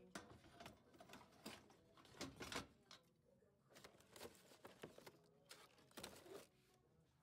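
Faint, irregular clicks and rustles scattered over quiet room tone, thickest about two seconds in and again near the end.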